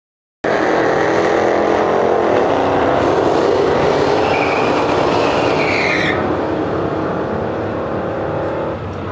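Supercharged 5.8-litre V8 of a 2013 Shelby GT500 running loud and rough as the car rolls forward, with a brief high squeal that rises and falls about four to six seconds in. The sound eases a little after that.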